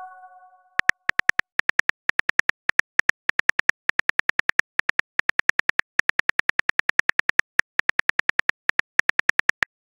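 Simulated phone keyboard typing sound effect: a fast run of short, sharp clicks, about seven a second with brief pauses, as a text message is typed out letter by letter. The fading tail of a chime is heard at the very start.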